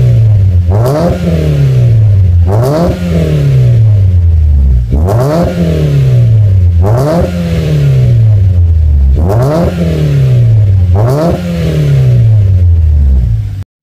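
2012 Mitsubishi Lancer EX GTA four-cylinder engine revved at a standstill through a full aftermarket exhaust with carbon-fibre tips. It gives six quick blips, in pairs, each climbing fast and falling back slowly toward idle. The sound cuts off suddenly near the end.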